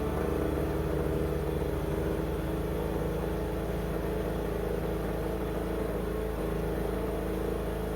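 Yard Machines riding mower engine running steadily at a constant speed.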